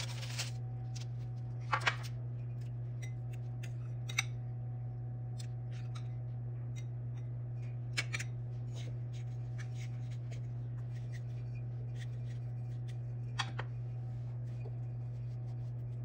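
Light food-handling sounds: soft rustles and scattered small taps as crumb-coated fish patties are pressed and set down on a parchment-lined baking tray, with a few sharper clicks, over a steady low hum.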